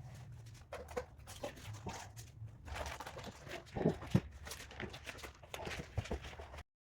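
Small handling noises: scattered clicks, rustling and a couple of louder knocks about four seconds in, over a low steady hum. The sound cuts off abruptly near the end.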